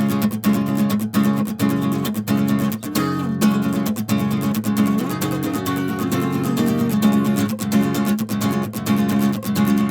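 Acoustic guitar strummed in a steady rhythm, chords ringing between the strokes, with no vocal.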